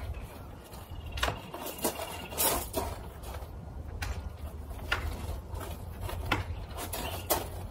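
Knocks and rattles from a mini greenhouse's tubular frame as its tubes are pressed down into their plastic connectors: about eight separate knocks, roughly a second apart, over a low steady rumble.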